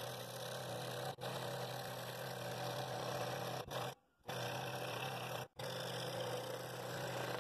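Scroll saw running and its blade cutting a cherry blank on a 35-degree bevel, a steady buzz over a constant motor hum. The sound drops out briefly three times.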